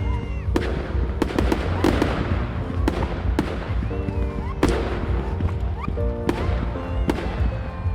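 Professional fireworks display: aerial shells bursting in a string of sharp bangs, about ten in eight seconds, some followed by crackling and a few short rising whistles, over music playing throughout.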